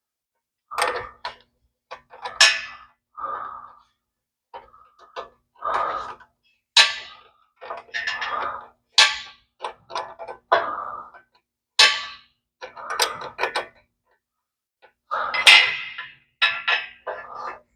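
Wrench working on exhaust header bolts: a string of irregular metal clinks, clanks and knocks, one every half second to a second, busiest near the end.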